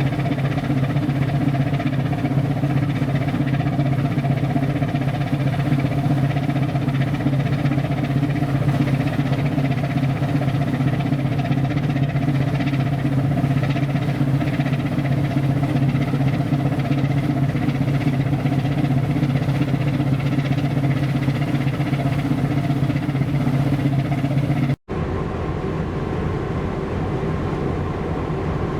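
Steady drone of a coastal tanker's diesel engine running under way, with a strong low hum. About 25 seconds in it cuts off abruptly and a lighter, steady engine drone follows.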